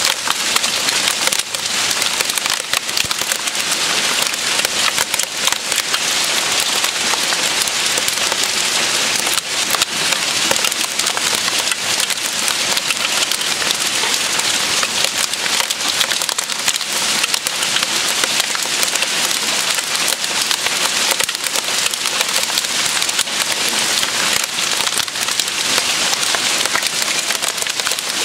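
Hail pattering on kale leaves and garden soil: a steady, dense patter of countless small hits.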